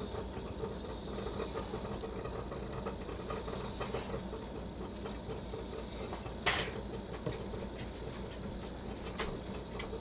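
Pileated woodpecker pecking and digging into rotting wood on the ground: scattered soft taps, with one sharp knock about six and a half seconds in and a few more near the end, over a steady low background rumble.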